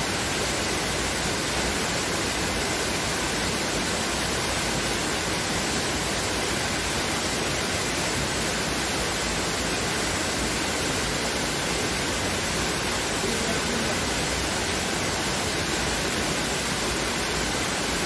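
Waterfall falling into a rock pool: a steady, even rush of water.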